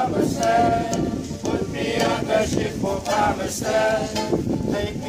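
A group of voices singing together like a choir, with long held notes that change every second or so.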